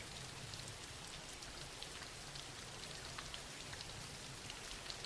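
Soft, steady rain falling, a faint even hiss with scattered light drop ticks.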